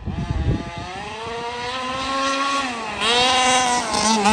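Small two-stroke petrol engine of a 1/5-scale HPI Baja 5B RC buggy, a 7.5 hp swap, revving high as the buggy drives: the pitch climbs steadily, eases off briefly about three seconds in, then revs up again louder. The engine is running crisply.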